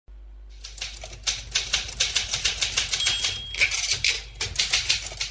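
Title-sequence sound effect: a quick, irregular run of sharp clacks, about four a second, with a short high beep a little past the middle.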